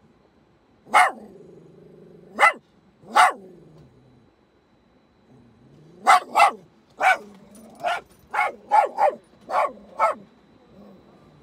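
Small dog barking inside a car: three sharp barks in the first few seconds, then after a pause a quicker run of about nine.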